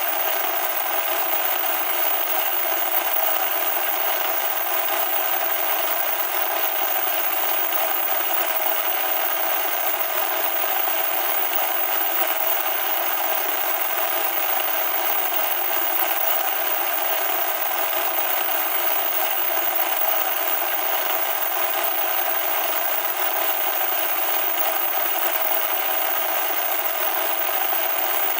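Loud, steady static hiss with no bass, unchanging throughout.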